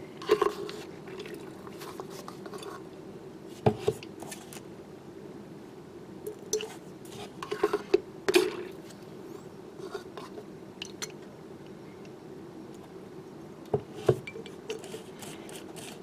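Plastic bottles handled and set down on a workbench with scattered light clicks, knocks and scrapes as airbrush thinner is poured into a mixing bottle of surfacer. A steady low hum runs underneath.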